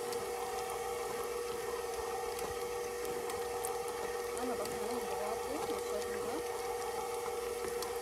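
Electric stand mixer running at a steady speed with a constant hum, its beater blending cubed mango and cream cheese in a stainless steel bowl.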